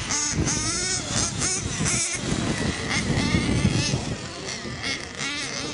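Radio-controlled model motorcycles racing, their motors running at high pitch and rising and falling repeatedly as the throttle opens and closes.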